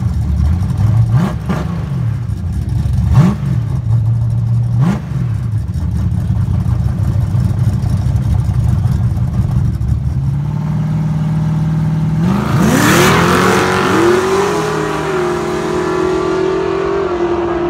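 V8 drag cars staged for a dig race, one a twin-turbo Coyote Mustang: engines idling with the revs blipped three times, then held at higher revs and launched from a stop at full throttle, climbing in pitch as they pull away.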